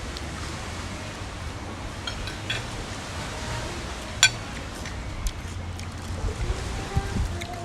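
Eating utensils clinking against a bowl or plate, a few light clicks and one sharp clink about four seconds in, over a steady low rumble.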